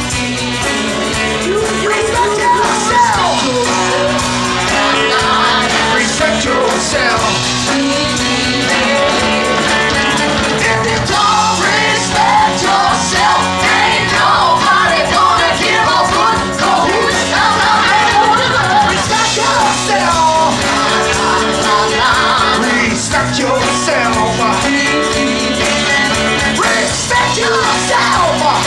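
Live band playing a soul number: male lead vocal with female backing singers over electric guitar and drums, loud and steady throughout.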